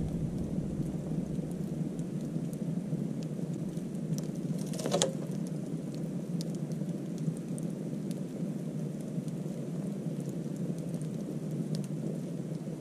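Wood fire of long logs leaning onto a bed of coals, burning with a steady low rush of flame and scattered sharp crackles, with one louder pop about five seconds in.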